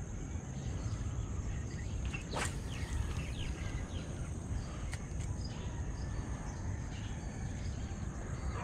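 Outdoor ambience at a reedy pond: a steady high insect drone with scattered short bird chirps over a low rumble, and a couple of faint brief clicks.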